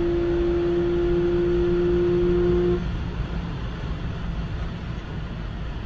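Porsche 911 Carrera's flat-six engine heard from inside the cabin at high motorway speed, holding one steady droning pitch, then cutting off abruptly about three seconds in, leaving wind and tyre noise.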